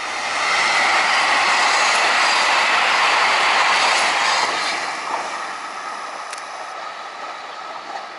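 A train passing close by at speed, the rumble and rush of its wheels on the rails. It swells about half a second in, stays loud for about four seconds, then fades away.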